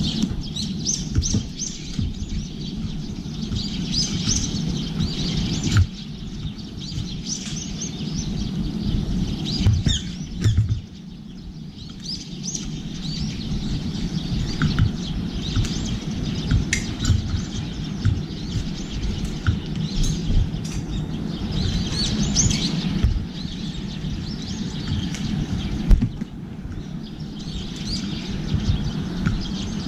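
Small birds chirping and twittering at a balcony feeder, with a few sharp clicks from beaks and feet on the steel feeding tray, over a steady low hum of city background.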